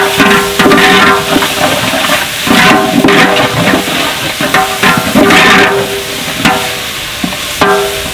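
A long-handled metal ladle scraping and stirring inside a large aluminium cooking pot, each stroke making the pot ring, over the wet sizzle of tomatoes frying in hot oil with onions.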